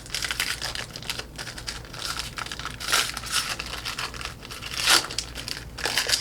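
Foil trading-card pack wrapper crinkling as it is torn open by hand, with louder rips about three and five seconds in.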